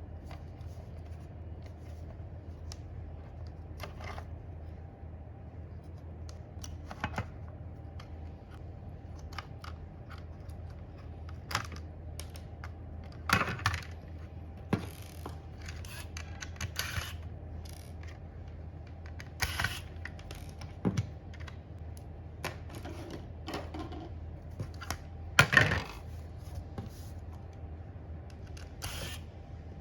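Scattered clicks, taps and light clatter of small hard parts being handled and set down, over a steady low hum. A few louder knocks come about a third of the way in and again past the middle.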